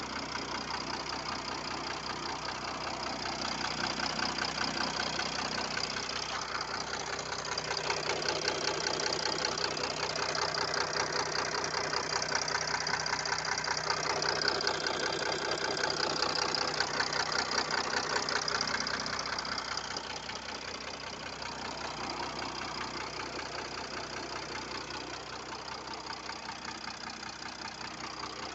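Mercedes-Benz OM642 V6 diesel engine running with a rapid, regular knock. It gets louder a few seconds in and eases off again about two-thirds of the way through. The knock is the fault being shown.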